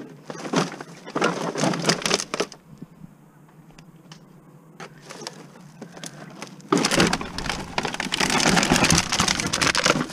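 Plastic bags full of empty plastic bottles and containers rustling and crinkling as they are handled and pulled out of a car. There are two bursts: a short one in the first couple of seconds and a longer one starting about two-thirds of the way in.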